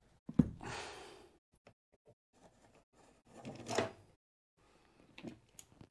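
Handling noise of tools and heavy battery cable: a click and a short rustle near the start, scattered light ticks, a louder scraping rustle past the middle, and a few clicks near the end.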